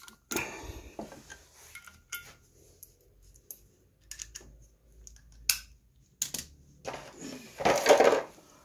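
Metal hand tools clinking and tapping in a scattered series of light knocks while working on the clutch, then a louder metallic clatter a little before the end.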